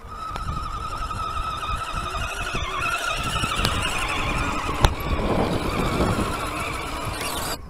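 Radio-controlled scale crawler's electric motor and gearbox whining steadily as it drives over stony ground, with rumbling and scattered knocks from the chassis and tyres; one sharp knock about five seconds in.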